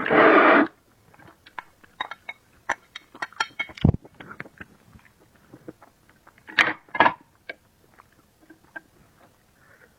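Close-miked eating sounds: a loud noisy burst at the very start, then chewing with many small wet mouth clicks, and two louder noisy bursts about two-thirds of the way through.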